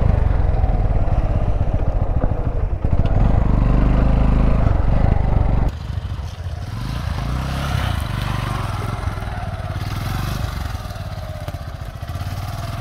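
Yamaha FZ motorcycle's single-cylinder engine revving as the bike is ridden through mud and slush. It is loud and close for the first five or six seconds, then drops suddenly to a quieter, more distant engine note that rises a few times.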